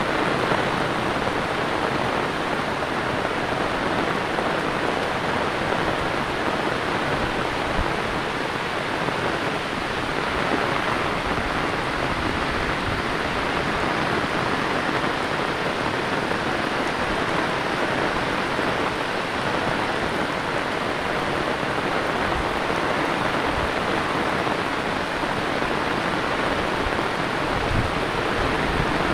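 Heavy rain pouring down steadily, a dense, even hiss with no let-up.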